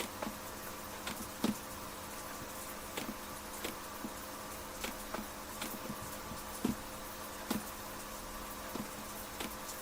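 Computer mouse clicking irregularly, a light click every half second to a second, over a steady electrical buzz.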